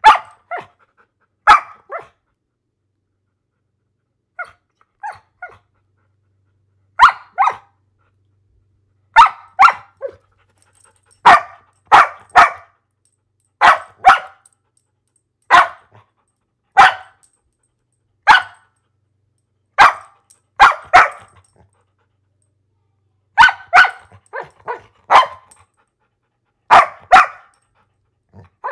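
A dog barking: short, sharp barks, single or in quick runs of two or three, every second or two, with a pause of about two seconds near the start.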